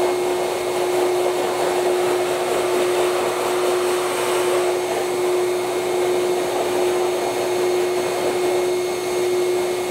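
Master Blaster 4.0 bird blower running steadily, air rushing from its hose nozzle with a steady whine. It is blowing dry the feathers of a washed pheasant skin, the last stage of drying before mounting.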